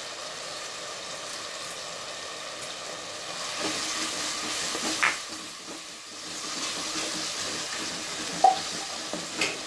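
Chopped onions, tomatoes and fresh coriander leaves sizzling as they sauté in a clay pot, stirred with a wooden spatula, the sizzle swelling as they are turned over. A few sharp clicks sound through it, the loudest near the end.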